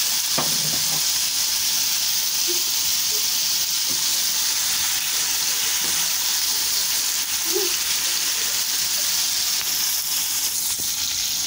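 Diced chicken breast with onion and green chilli sizzling steadily in oil in a karahi, stirred with a spatula with a few faint scrapes and knocks.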